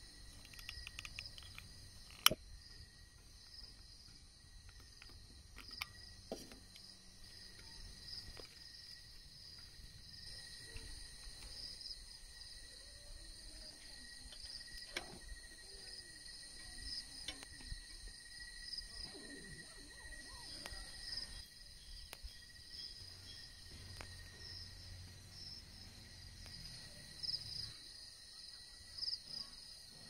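Faint, steady chirring of crickets and other night insects in several high pitches. A single sharp click comes about two seconds in, with a few fainter knocks later.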